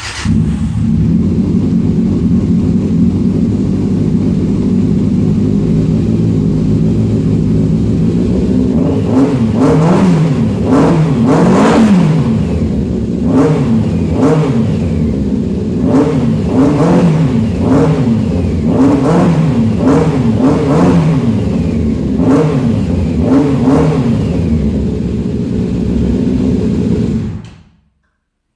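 Custom motorcycle engine through a temporarily fitted custom exhaust with a very deep sound. It starts, idles steadily for several seconds, then is revved in a long series of quick blips from about nine seconds in, settles, and is shut off near the end.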